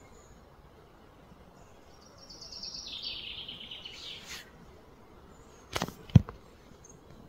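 A bird trills, a rapid run of high notes stepping down in pitch for about two seconds, starting about two seconds in. Near the end come two sharp knocks, the second one the loudest sound.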